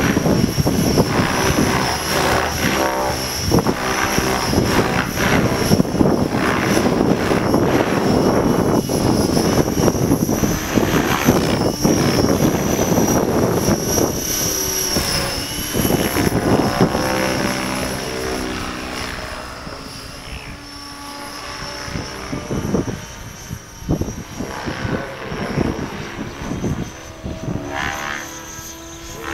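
Radio-controlled model helicopter in flight: a high steady whine from its motor and rotors over a rough rushing noise, louder for the first two-thirds, then fainter and more uneven as it flies farther off.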